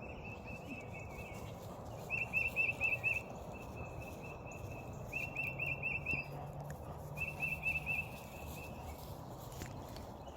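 A songbird singing a phrase of five or six quick, repeated notes, heard four times with pauses of one to two seconds between, over steady low background noise.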